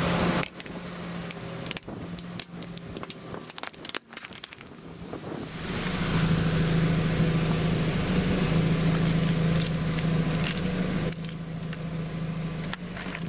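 Something being crushed by a machine: crackling, crunching snaps over a steady motor hum. The snaps are thickest in the first few seconds, while the hum is lower, and the hum swells again about halfway through.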